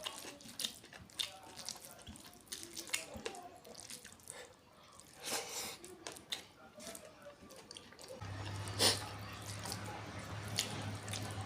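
Close-miked eating sounds: wet chewing and smacking clicks from someone eating a curry meal, sharp and irregular. A steady low hum comes in about eight seconds in.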